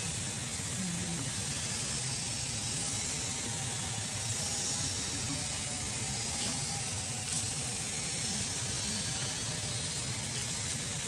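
Steady outdoor background hiss, with a faint wavering tone in the middle.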